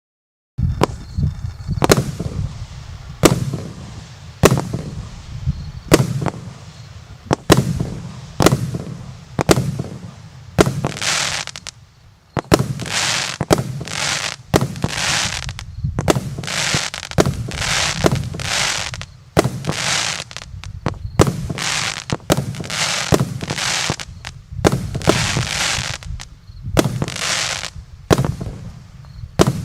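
Multi-shot fireworks cake (JF C20-49) firing its shots one after another, a sharp bang about once a second. From about ten seconds in, each bang is followed by a long hiss.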